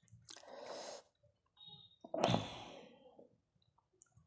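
A woman breathing out heavily twice, a softer breath near the start and a louder, sigh-like exhale about two seconds in.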